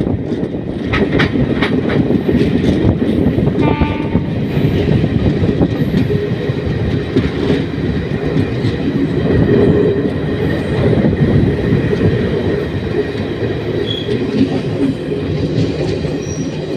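Passenger train running along the line: a steady rumble of wheels on the rails, with clickety-clack over the rail joints. A brief high-pitched tone sounds about four seconds in.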